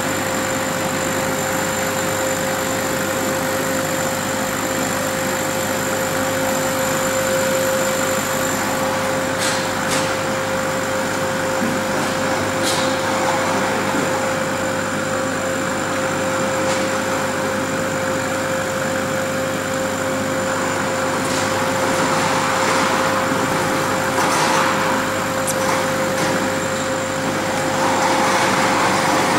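Steady hum of a CO2 laser cutting machine's running equipment (fans and pumps), holding one constant tone. A few light clicks and, near the end, fabric rustling as an acrylic piece is handled against a cloth bag.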